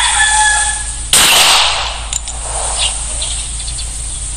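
A rooster crows at the start, then a single handgun shot goes off about a second in, a sharp crack with a short echo that is the loudest sound.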